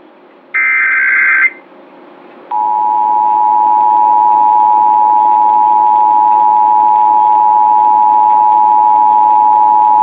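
Emergency Alert System broadcast audio: about half a second in, a one-second burst of SAME digital header data tones. About two and a half seconds in, the EAS attention signal starts, a steady two-tone alert at 853 and 960 Hz sounding together, and holds.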